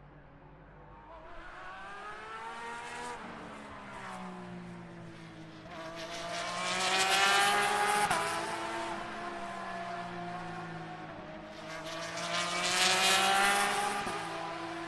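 GT Le Mans race cars accelerating past at full throttle, one after another. Their engine notes climb and then drop sharply at each upshift, with the two loudest passes about halfway through and near the end.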